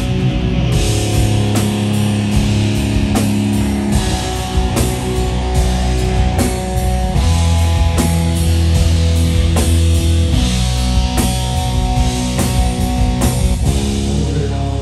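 Live rock band playing loud: electric guitar over bass and a drum kit keeping a steady beat of drum and cymbal hits.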